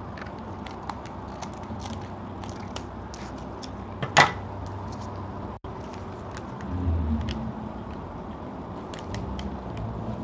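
Scissors snipping a paper trading-card pack wrapper open, followed by the wrapper rustling and crinkling as it is handled, with many small clicks and crackles. A sharp, loud snap about four seconds in and a dull thud near seven seconds; the audio cuts out for an instant about halfway.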